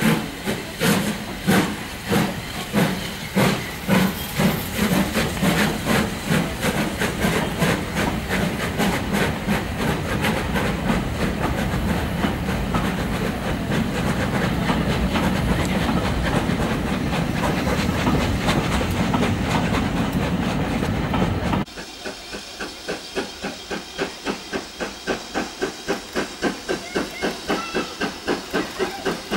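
Steam locomotive pulling away under steam: loud exhaust chuffs with hissing steam, the beats coming closer together as it gathers speed until they merge into a steady rush. About three-quarters of the way through it cuts abruptly to quieter, even chuffing from a steam locomotive working, a few beats a second.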